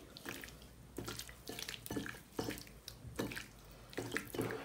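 A hand squishing raw chicken pieces through a wet soy sauce and vinegar marinade in a ceramic bowl: soft, irregular wet squelches.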